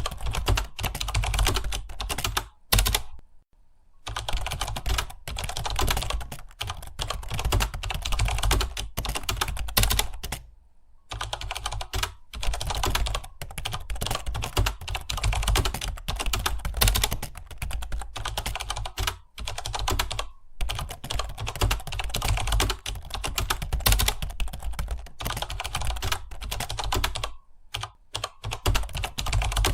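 Computer keyboard being typed on fast and continuously, a dense run of key clicks broken by a few short pauses, the longest about a second.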